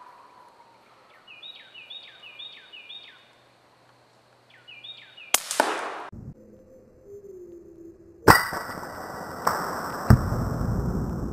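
A few short, repeated high chirps, then a sharp crack about five seconds in from a suppressed hunting rifle. About three seconds later comes a second, louder sharp report, followed by a steady rush of noise and a couple of further clicks.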